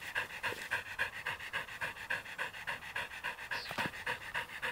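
Australian shepherd panting rapidly and evenly, about five breaths a second, worn out after a half-hour walk.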